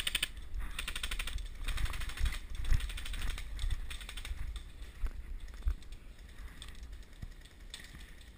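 Airsoft electric guns firing full-auto in several short bursts: fast, even rattling clicks, a burst every second or two with the last ones fainter.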